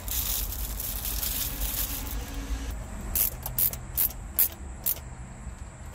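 Hands fitting a metal mounting bracket to a car stereo's chassis: a rustle, then about five short, sharp clicks and taps, over a low steady hum.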